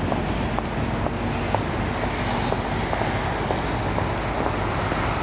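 Steady city street noise: a low rumble of passing road traffic, with a few faint short ticks over it.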